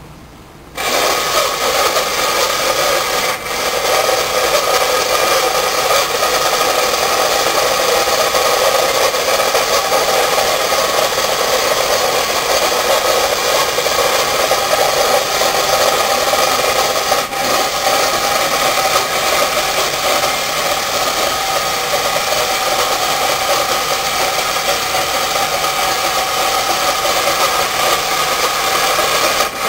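Battery-powered tin Cragstan Mountain Cable Car toy running along its string cable: its small electric motor and gears whir and rattle steadily, starting about a second in. It is working properly.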